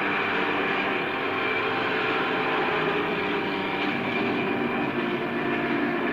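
Steady running noise of a moving vehicle, engine and road noise held at an even level with no clear changes.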